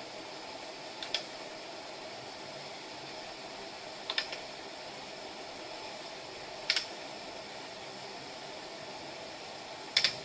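Steady fan-like hiss of equipment running, with a few sharp key clicks on the ultrasound scanner's console, about one every three seconds, some in quick pairs.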